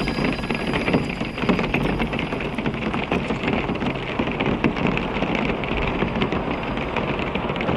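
Steady, dense crackle and hiss of rain over a low rumble, used as a sound texture in an experimental electronic track.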